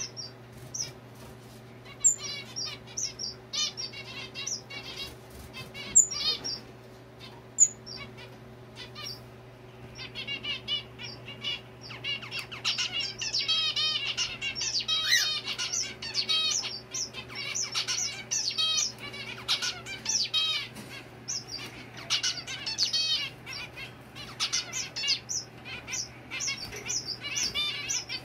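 Several caged zebra finches calling and chirping in short repeated notes, with a few loud single calls in the first eight seconds and a much busier chorus from about ten seconds in. A faint steady low hum runs underneath.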